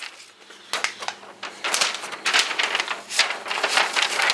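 A large paper model-kit instruction sheet being turned over and smoothed flat, rustling and crackling in a run of separate handling strokes.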